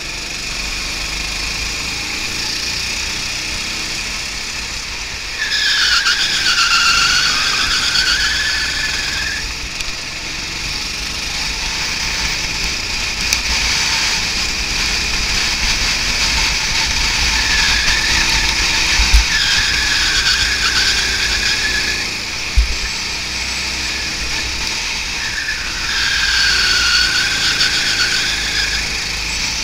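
Go-kart engine running under race load, heard from on board, its note dipping and climbing again three times as the kart brakes into and drives out of corners, over a steady low wind rumble. Two sharp knocks a few seconds apart in the middle.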